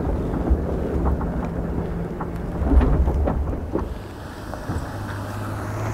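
Wind buffeting and a low rumble from a camera mounted on the outside of a Toyota Tundra TRD Pro driving along a rough dirt trail, with scattered knocks from the tyres and suspension over the ground. About four seconds in it drops to a quieter, steady low hum.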